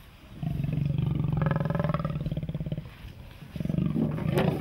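Leopard growling as it comes round from anaesthesia: two long, rough growls, the first about two seconds long and the second shorter near the end.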